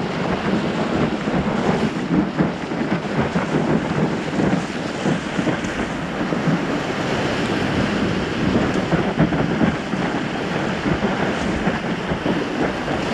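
Steady rushing and splashing of water under the nose of a stand-up paddleboard as it rides a wind wave, with wind buffeting the board-mounted microphone.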